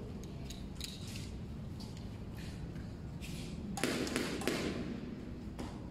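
Squash ball struck by a racket and bouncing off the concrete walls and floor: a run of light sharp taps, with a louder cluster of hits about four seconds in.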